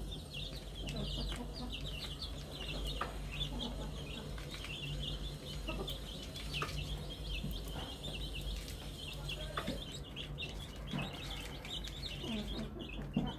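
A brood of newly hatched Fayoumi and local-breed chicks peeping continuously in quick, high cheeps, with the mother hen clucking low now and then, mostly near the end. A steady low hum runs underneath.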